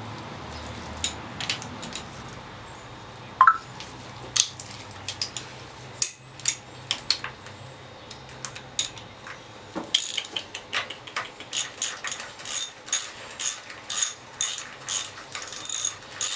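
Hand ratchet wrench clicking as a bolt is backed out of a Honda K24 engine: scattered clinks of tools on metal and a brief squeak, then from about ten seconds in a steady run of about two clicks a second.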